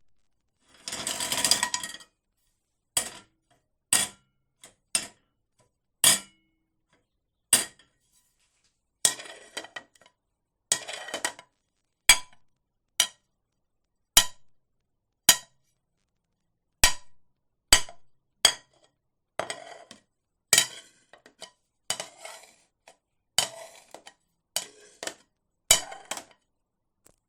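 A plate knocked and set down again and again: a series of separate clinks and knocks, each ringing briefly, with short rattling scrapes in between, the longest about a second in.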